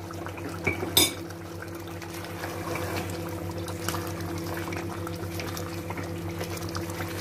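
Thin curry gravy bubbling and sloshing in an aluminium pot as a wooden spoon stirs it, with small scrapes and one sharp knock about a second in. A steady hum runs underneath.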